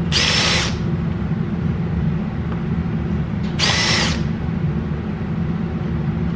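Cordless drill with a countersink bit boring into the pilot holes of a wooden board: two short bursts of motor whine, each about half a second, one at the start and one about three and a half seconds later. A steady low hum lies underneath.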